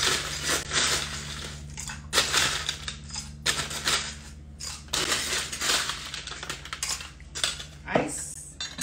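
A blue metal cocktail shaker shaken by hand in uneven bursts, ice rattling against the metal, mixing the drink before it is strained. A sharp knock near the end as the shaker is set down or opened.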